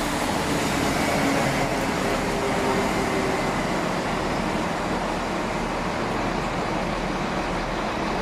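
Class 165 Turbo diesel multiple unit running at the platform, its diesel engines and wheels making a steady noise, with a faint whine in the first few seconds.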